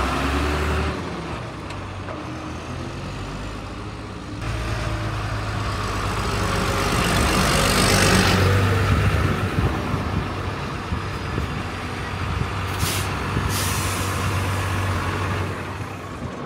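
JCB Fastrac tractor's diesel engine running as the tractor drives along, growing louder to a peak about halfway through and then easing off. Two short hisses come about three quarters of the way through.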